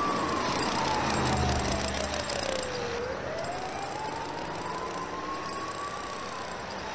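A siren wailing slowly with a single tone that falls over about three seconds, rises again over the next three and starts to fall near the end, over street noise and a low hum.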